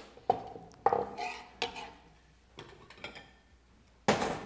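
Metal kitchen utensils clinking and knocking on the work table, about six separate knocks, some ringing briefly.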